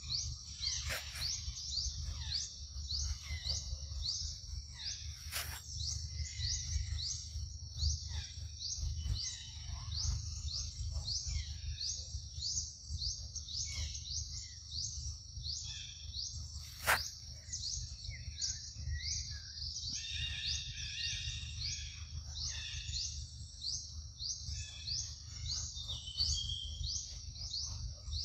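Forest ambience: a high, even chirping repeated about three times a second, with scattered lower bird calls and a low rumble. A few sharp clicks are heard, the loudest about two-thirds of the way through.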